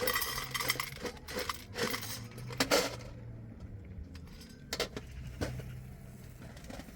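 Clinking and rattling of small hard objects being handled: a dense run of clinks over the first three seconds, then a few single clinks about two seconds later.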